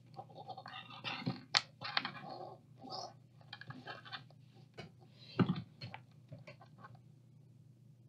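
Thin hookup wires being handled and twisted together on a wooden tabletop: irregular rustling, scratching and small clicks, with a sharper knock about a second and a half in and another about five seconds in, over a faint low steady hum.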